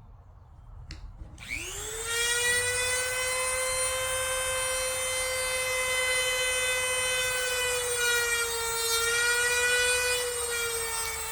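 Dremel rotary tool spinning up to a steady high whine, its pitch sagging slightly a few times under load as it grinds out the foam filling inside an A2 rifle buttstock.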